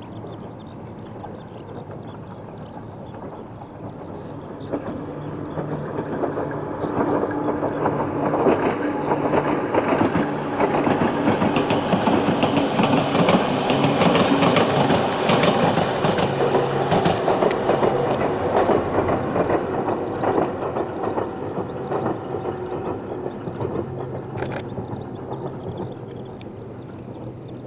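Two-car Ohmi Railway electric train passing: its running noise builds over several seconds, peaks around the middle with a rapid clickety-clack of wheels over rail joints, and fades away toward the end.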